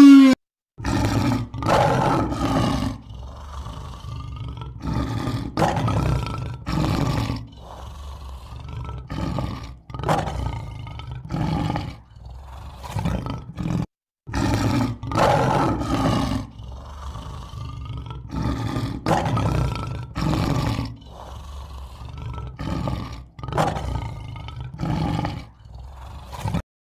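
Lion roaring: a series of deep roars that start long and loud and trail off into shorter grunts. The sequence breaks off about halfway through and then starts over.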